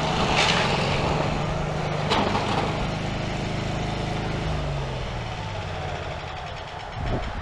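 Scag Tiger Cat zero-turn mower's engine running under load with a single pop about two seconds in, then slowing and dying over the next few seconds: the engine has thrown a connecting rod through the side of the block.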